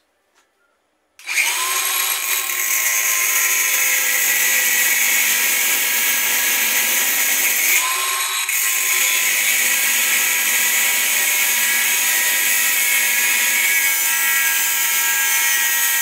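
Angle grinder with a cut-off disc starting up about a second in and cutting into the metal bearing retainer on a washing-machine transmission shaft: a loud, steady high whine, briefly rising in pitch about halfway through.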